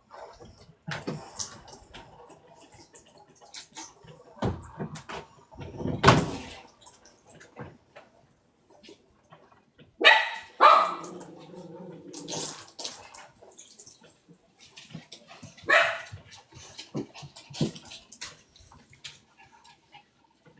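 Pet dogs barking now and then, a few short barks and yips spread out, the loudest around the middle.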